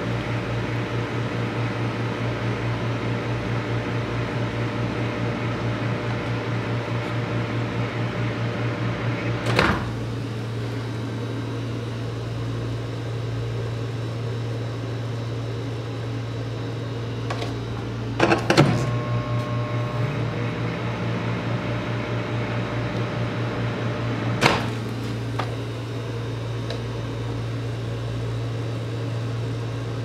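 Microwave oven running with a steady low hum. Three sharp pops break through it, the middle one a quick cluster of cracks, while raisins heat on the turntable.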